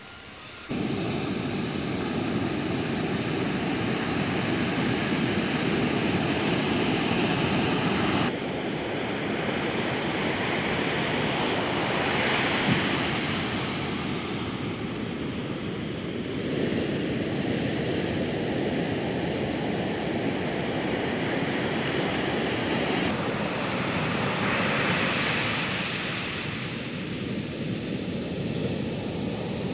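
Ocean surf breaking on a sand beach: a steady rush of waves, swelling louder twice as bigger waves break. It starts abruptly just under a second in.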